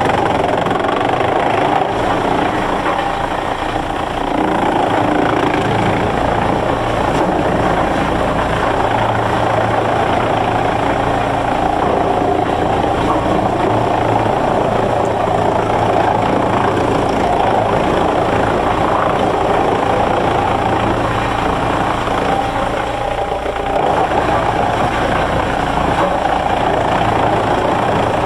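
Heavy machinery running steadily and loudly: a continuous rushing mechanical noise over a low engine hum.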